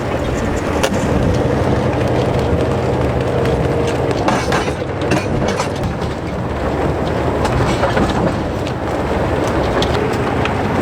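Heavy vehicle engine running steadily, with scattered sharp metallic clicks and clanks, a cluster of them about halfway through.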